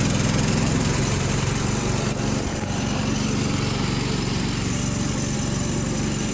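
Small engine of an open off-road vehicle with wide low-pressure tyres running steadily under way on a dirt track.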